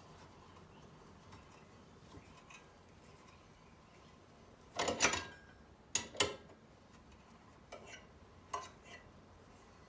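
A few light metallic clinks and knocks of a steel nut and bolt being handled, as the nut is taken off the reground bolt: a cluster about halfway through, two sharp ones just after, and fainter taps near the end.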